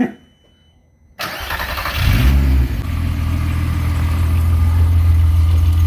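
Car engine cranked and starting a little over a second in, briefly louder as it catches, then running steadily at idle.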